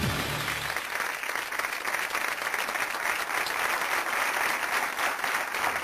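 Studio audience applauding, a dense even clapping. It follows the show's music sting, which ends in the first second.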